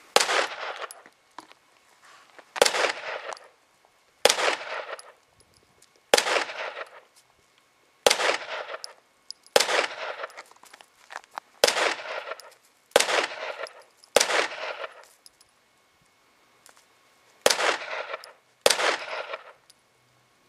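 .22 calibre Puma 1911 replica pistol firing eleven single shots at an uneven pace, mostly one to two seconds apart with a longer pause about two-thirds of the way through. Each sharp crack trails off in a short echo.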